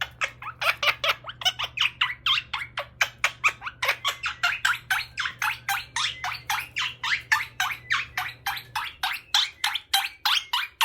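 Quaker parrot giving a fast, unbroken run of short, sharp squawks, about four or five a second.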